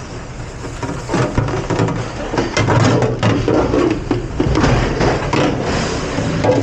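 Dishes and kitchen ware clattering and knocking irregularly over a steady low machine hum, as in a commercial dish room.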